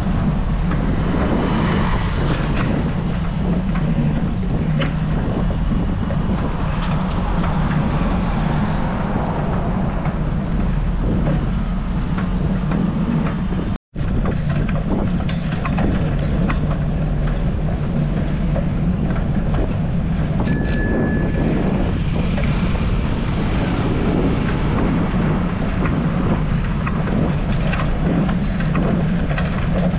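Wind buffeting a bike-mounted camera's microphone while riding along a road, a steady rumble and hiss with passing traffic noise. There is a short bell-like ding about two-thirds of the way through, and a fainter one near the start.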